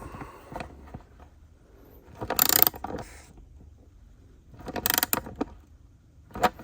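An 11 mm ratchet wrench clicking as it tightens the nut on a tool-chest drawer lock's bar. It comes in two short runs of rapid clicks, about two and a half seconds apart, with a few fainter clicks between and a sharper click near the end.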